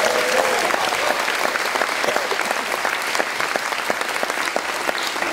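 Audience applauding, dense steady clapping. A last held note of music fades out in the first half second.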